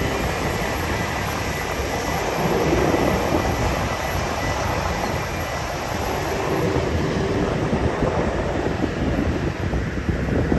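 An airliner's engines running as a steady rumble and hiss.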